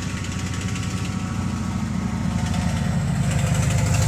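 Diesel engine of a Ural-4320 truck carrying a Damba rocket launcher: a steady low pulsing rumble that grows louder as the truck approaches.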